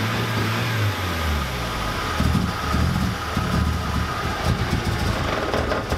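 Turbocharged Nissan Sentra's engine running, steady for about a second and then uneven. It will not run solid, which the owner suspects is an ECU problem.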